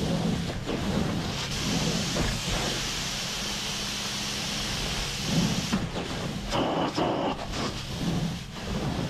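Carpet-cleaning extraction wand under vacuum, drawing water and air out of the carpet as it is stroked across it, with a steady rushing noise. The rushing swells and dips several times in the second half.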